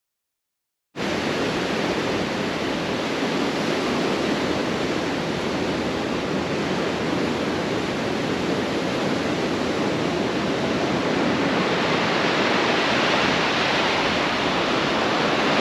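Ocean surf washing steadily on a beach, starting about a second in after silence.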